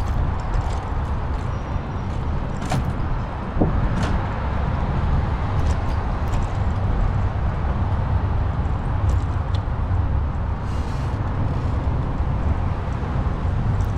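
Steady low rumble of wind on the microphone and road noise while cycling, with a few light clicks and rattles scattered through.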